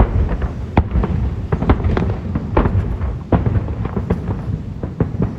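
Fireworks display: a rapid, irregular string of aerial shell bursts and cracks, a dozen or more sharp bangs over a continuous rumble of explosions.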